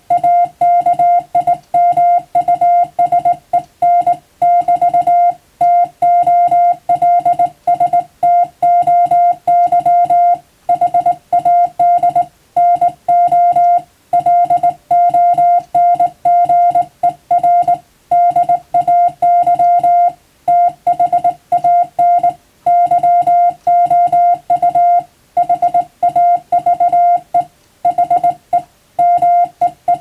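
Morse code sent by hand on a straight telegraph key: a single steady beep switched on and off in quick dots and dashes, spelling out English plain-language practice text, with short pauses between words.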